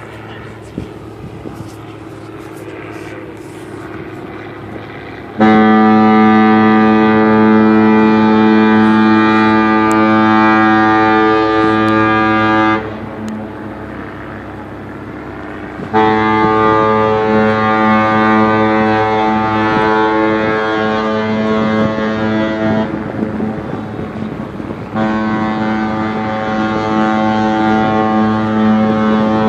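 Norwegian Epic cruise ship's horn sounding three long, loud blasts of a deep steady tone rich in overtones, a few seconds apart, after about five seconds of low background noise; the third blast is still sounding at the end.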